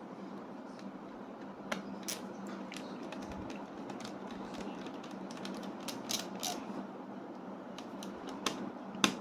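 Small screwdriver tightening the tiny retaining screw of an M.2 NVMe SSD in a laptop: scattered light clicks and ticks of the driver tip and screw, the loudest near the end, over a faint steady hum.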